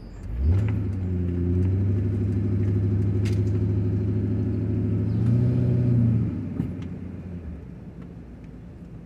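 A motor vehicle engine comes in suddenly just after the start and runs with a steady low hum. It swells louder around five seconds in, then drops away about six seconds in and fades out.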